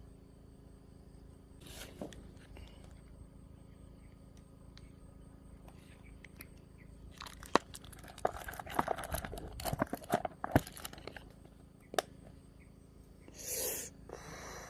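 A flurry of sharp clicks, knocks and scraping, like parts and tools being handled, bunched in the middle with a single click after and a short rustling burst near the end, over a faint steady chirring of crickets.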